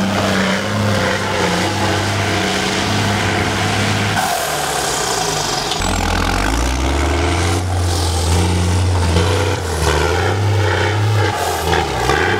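A heavy off-road competition truck's engine running under load. The revs rise and fall, dip briefly about four seconds in, then pick up again.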